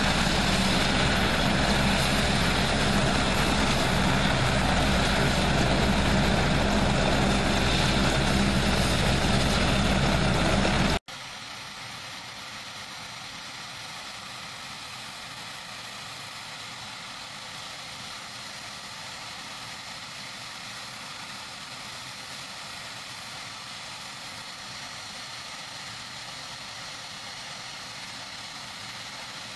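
An HH-101A Caesar helicopter running on the ground: the steady, loud noise of its three turboshaft engines and turning rotor. About eleven seconds in, the sound cuts off abruptly, leaving a much quieter steady engine hum.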